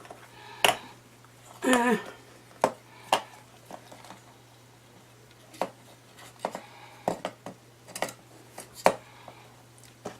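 Irregular clinks and clacks of small metal and plastic electronic parts being handled on a workbench, about fifteen sharp knocks at uneven intervals, with one brief louder rattle about two seconds in.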